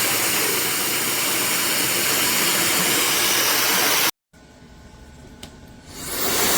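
Labiim brushless-motor hair dryer blowing with a steady rush of air. About four seconds in the sound cuts off abruptly; a quieter stretch with a single click follows, and the dryer spins back up to full near the end.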